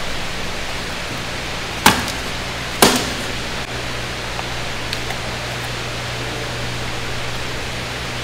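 Steady rush of running water over a low hum, broken by two sharp knocks about a second apart near the start.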